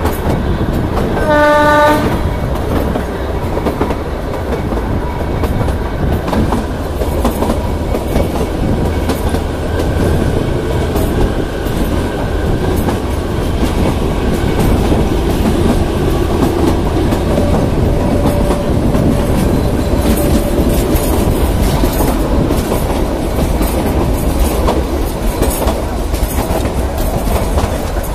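Kalka–Shimla narrow-gauge passenger train running, heard from a coach window: wheels rumbling and clattering steadily over the track. About a second in comes one short horn blast from the ZDM-3 diesel locomotive.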